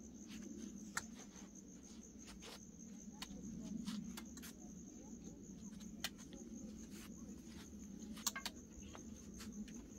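A faint, steady, high-pitched insect trill, like crickets, with a few sharp clicks and knocks scattered through it.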